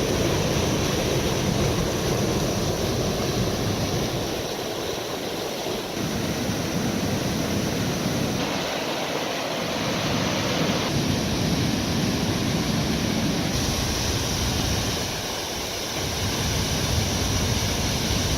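Creek water rushing steadily, a loud continuous roar with its tone shifting slightly a few times.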